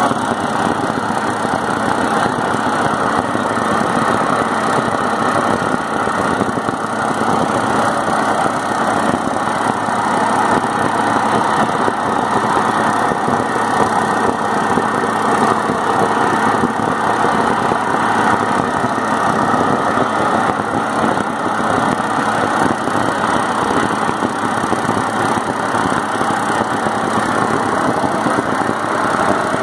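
Rail-welding preheating equipment for an SKV short-preheat thermit weld running with a steady, unbroken drone.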